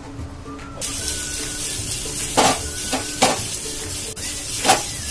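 Sliced onion and green capsicum sizzling in oil in a nonstick frying pan, stir-fried on a low flame. The hiss starts suddenly about a second in, and a wooden spatula scrapes and knocks against the pan several times.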